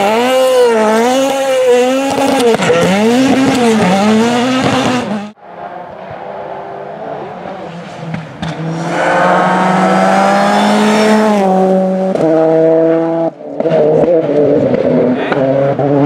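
Rally car engines at high revs. First a Renault Clio rally car revs hard with its pitch swinging up and down rapidly; after a cut, another car accelerates with a steadily rising pitch, then drops in two steps as it downshifts.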